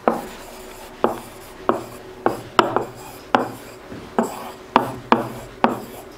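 A pen knocking and scraping on the hard surface of an interactive whiteboard as words are hand-written. There are sharp taps at the start of the strokes, about two a second and unevenly spaced, each trailing off briefly.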